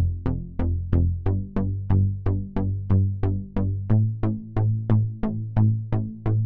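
Background electronic music: a steady beat of about three short plucked notes a second over a low bass note that shifts pitch about four seconds in.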